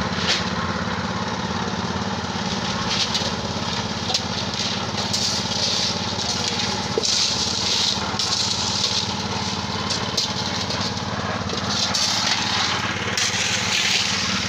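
Small engine of a portable drum concrete mixer running steadily. Gravel rattles and scrapes over it in several stretches, loudest about halfway through and again near the end.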